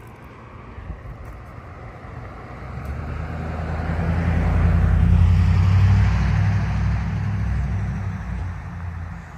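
A car driving past, its engine and tyre noise swelling to a peak about five seconds in, then fading away.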